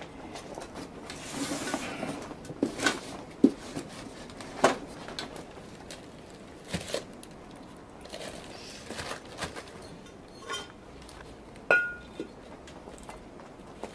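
Brake discs being handled and set down: scattered metal clinks and knocks, one of them ringing briefly near the end, with a short rustle near the start.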